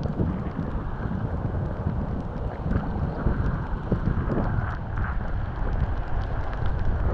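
Wind buffeting the microphone: a steady low rumbling roar with gusty swells.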